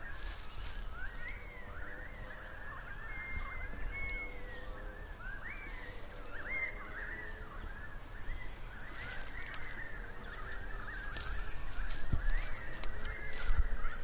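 Many birds chattering at once, a continuous jumble of short squeaky rising and falling calls. Under them is a low wind rumble on the recorder's microphone that grows louder near the end, with a couple of handling knocks.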